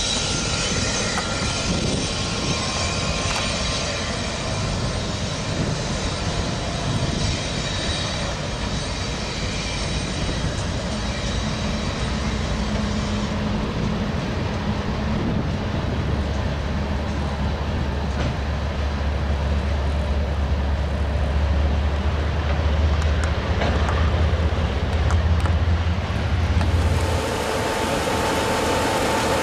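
Diesel-hauled freight train of hopper and tank cars rolling over a steel bridge: a continuous rumble and rattle of wheels and cars. A deep engine drone swells about halfway through and fades near the end, when a steady hum takes over.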